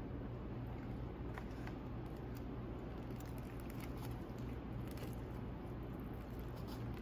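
A person biting into and chewing a burger close to the microphone: faint wet mouth clicks and paper-wrapper rustles, over a steady low hum.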